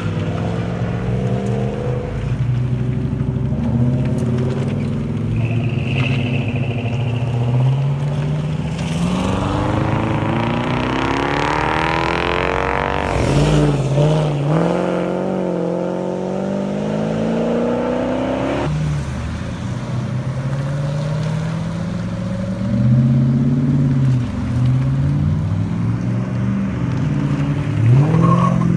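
Big American V8 and V10 engines from a convoy of Dodge performance cars rumble at low revs as the cars roll past. Near the middle, one engine revs up with its pitch climbing for several seconds before it drops off.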